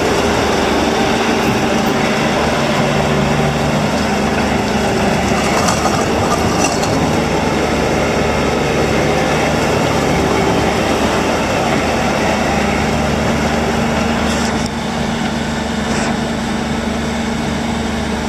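Bobcat T590 compact track loader's diesel engine running steadily with mechanical clatter, the level dropping slightly about 15 seconds in.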